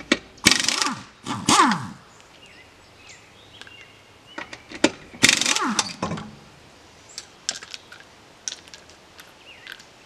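Impact wrench with a 19 mm socket hammering wheel lug nuts loose in three short bursts, each winding down with a falling whine. Small metallic clicks follow as the loose lug nuts are set down on concrete.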